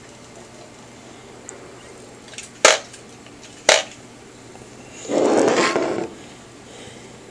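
Plastic model-kit parts being handled: two sharp clicks about a second apart, then about a second of rustling.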